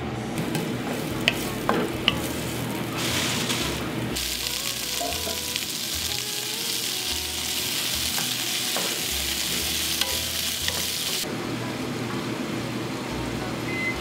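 Sliced celery, carrot and onion sizzling in a hot wok while stirred with a wooden spatula. A few sharp clicks come first, then a loud sizzle starts about three seconds in and stops suddenly about three seconds before the end.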